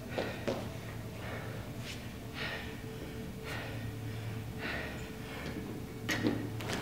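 Heavy, gasping breaths of a man winded by a high-intensity workout, short sharp puffs of air coming roughly once a second, with a faint steady hum underneath.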